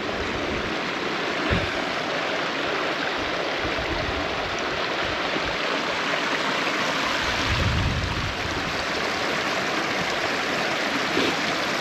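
Small hillside stream running and splashing over rocks, a steady rush of water.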